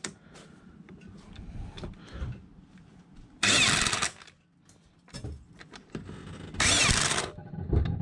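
Electric impact wrench running in a car's wheel bolts in two short bursts, about three seconds apart, each under a second long, lightly snugging the bolts rather than tightening them fully.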